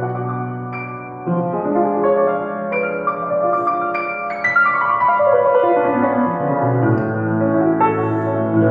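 Niendorf grand piano being played: chords and melody notes that ring on after each strike, with a run of notes stepping down into the bass about two-thirds of the way through.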